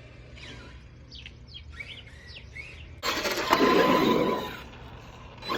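ARRMA radio-controlled truck running by: about three seconds in, a sudden loud rush of tyre and drive noise with a steady whine, lasting about a second and a half before fading. Birds chirp faintly before it.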